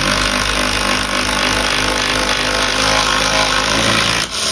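Milwaukee cordless impact driver with a half-inch socket hammering a lag bolt into a wall stud in one continuous run of about four seconds, stopping abruptly. The bolt went in very easily, which he thinks means it only caught the side of the stud.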